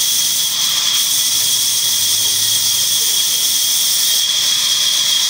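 Large sawmill band saw running and cutting through a log: a steady high-pitched whine over a loud hiss.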